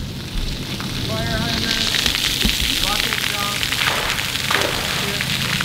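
Splash-pad fountain jets spraying water into the air and splattering down onto the concrete pad: a steady hissing rush of water that builds over the first couple of seconds, then holds.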